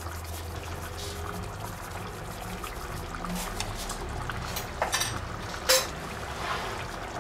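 Tomato and minced-meat sauce simmering in a frying pan, with two sharp clicks about five and six seconds in.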